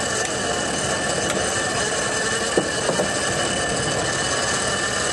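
Antique Foos Mfg. Co. flywheel machine running steadily, with one short sharp knock about halfway through.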